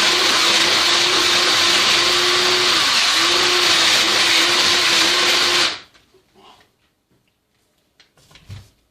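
Small electric drill running at steady high speed, enlarging a hole, its pitch dipping briefly about three seconds in; it stops just before six seconds in, followed by a few faint handling knocks.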